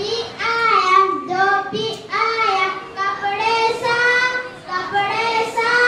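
A young boy singing into a microphone, holding long, drawn-out notes phrase after phrase.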